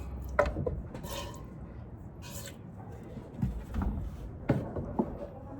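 Hand-milking a goat: milk squirting into a pail in short hisses, about once a second and unhurried. A few sharp knocks come in between, the loudest about four and a half seconds in.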